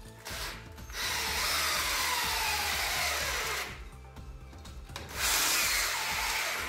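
Cordless drill-driver running into the wall at a pipe bracket in three runs. The first is short. The long second run has a motor whine that falls steadily as the tool slows under load. A shorter third run comes near the end.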